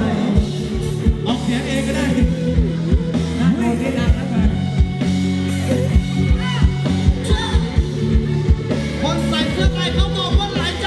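Live Thai ramwong dance band playing: a singer over a steady drum beat and a bass line.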